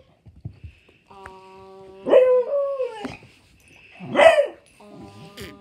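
A dog barks and yowls twice, about two seconds in and again about four seconds in, each call loud and sliding down in pitch: a dog demanding food from someone eating. A steady low hum comes and goes between the calls.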